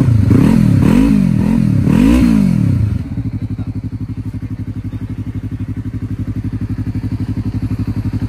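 Yamaha MT-03's 321 cc parallel-twin engine revved in four quick blips and then settling to a steady idle, heard through an open aftermarket slip-on muffler with its silencer insert out.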